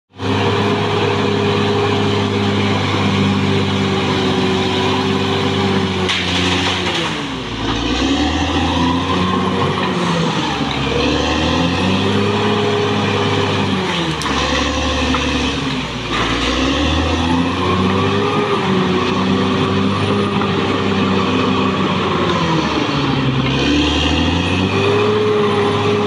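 Caterpillar D6R XL crawler bulldozer's diesel engine running hard as the machine works earth. The engine note sags and climbs back up several times.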